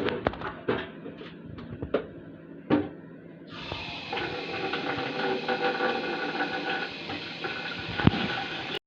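Kitchen knocks and clicks as potato slices go into a bowl of cold water, then a steady rush of tap water starting abruptly about three and a half seconds in and stopping suddenly near the end.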